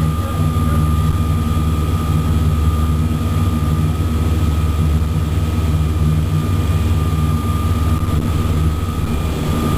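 Sightseeing boat's engine droning steadily, a deep hum with a thin steady whine above it.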